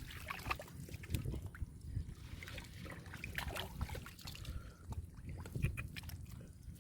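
Irregular sloshing and splashing of shallow muddy water, with scattered small knocks, as hands dig and grope through a muddy pool for fish.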